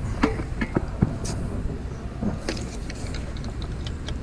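Steady low outdoor rumble, with a scatter of light clicks and knocks as fishing pole tackle is handled close by.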